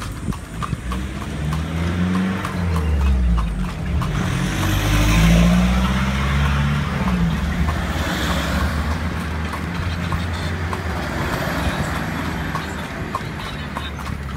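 A motor vehicle's engine passes close by, its pitch rising and falling and loudest a few seconds in, then fading. Under it a horse's hooves clip-clop steadily on the paved road.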